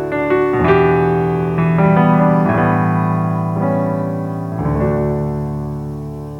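Keyboard playing the closing chords of a worship song: several chord changes in the first few seconds, then a final chord held and slowly fading.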